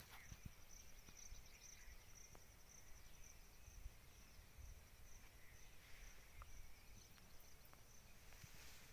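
Faint, steady high-pitched insect chirring that pulses rapidly, as from crickets in the crop.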